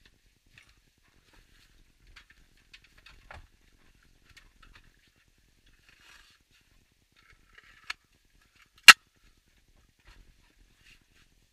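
Hands working at a VW Beetle's rear seat: faint rustling and scattered small clicks, then a sharp click about eight seconds in and a louder, very short snap about a second later.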